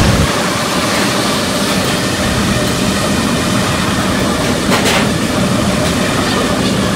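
A 5-inch FPV quadcopter's T-Motor Velox 2207 brushless motors and propellers running steadily and loudly in flight, straining under the weight of a mirrorless camera.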